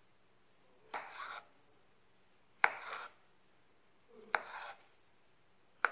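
Knife slicing lengthwise through a peeled avocado half on a plastic cutting board: three strokes about a second and a half apart, each a sharp tap trailing off in a short scrape.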